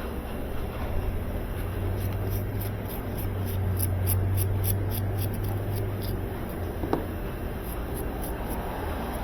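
Light clicks and ticks of parts being handled over a steady low hum, with one sharper click about seven seconds in.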